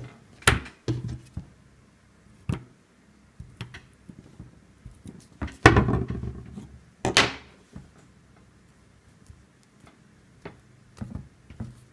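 A few small handling clicks and knocks, then a pocket lighter struck twice about halfway through, each strike a short rasping flick, to melt the end of a paracord strand.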